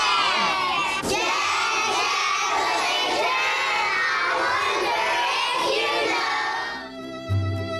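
A roomful of young children shouting and cheering together, many excited voices overlapping. Near the end the shouting stops and music with held tones and a low beat begins.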